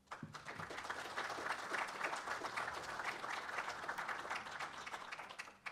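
Audience applauding, a steady mass of clapping that cuts off suddenly near the end.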